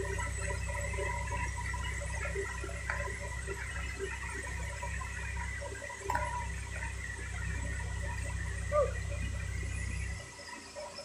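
Mobile crane's diesel engine running steadily while it hoists a log on a sling, then dropping away sharply about ten seconds in. A steady high whine and faint scattered chirps sit over it.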